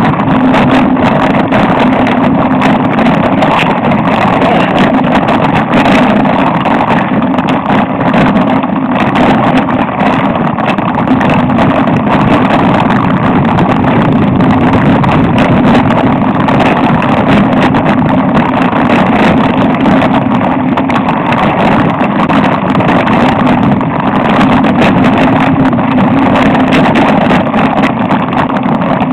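Loud, steady rush of wind and vibration on a mountain-biking action camera's microphone, with constant fine rattling as the bike rolls over the rocky trail.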